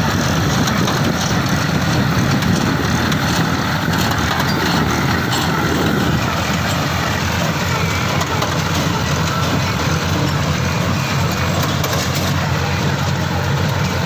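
Massey Ferguson 9500 tractor's diesel engine running steadily under load while driving a PTO small square baler that picks up and bales straw, the engine and the baler's working mechanism blending into one continuous mechanical drone.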